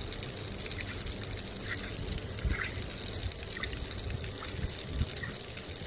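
Water running steadily from a wall pipe and splashing onto a concrete drain.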